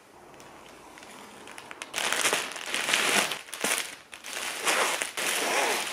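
Plastic packaging crinkling and rustling as a parcel of clothes is unwrapped: a plastic courier bag and clear plastic garment bags. It starts about two seconds in and comes in bursts, with a short lull a little before the four-second mark.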